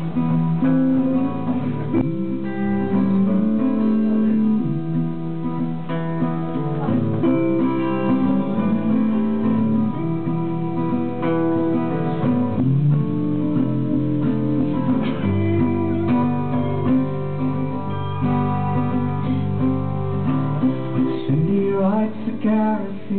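Acoustic guitar strummed, one chord after another ringing on steadily.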